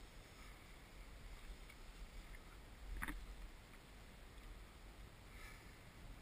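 Faint water lapping around a float tube, over a low steady rumble, with one brief sharp sound about three seconds in.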